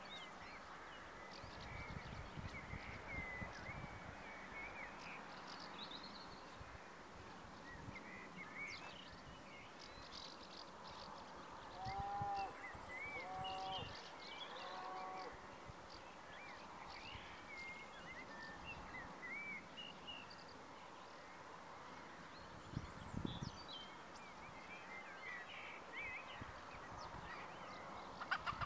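Outdoor evening ambience of birds: small birds chirp and twitter throughout, and about halfway through a lower-pitched bird call rings out three times. Brief low rumbles come and go.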